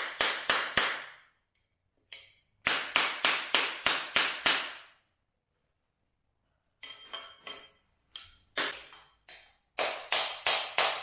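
Hammer blows on a drift held against an axle's steering knuckle, driving a seal into the knuckle. The blows come in quick bursts of several, about four a second, each ringing briefly, with a pause of about two seconds in the middle.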